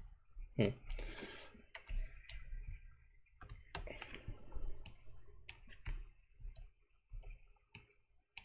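Computer mouse and keyboard clicking irregularly, a sharp click every half second or so.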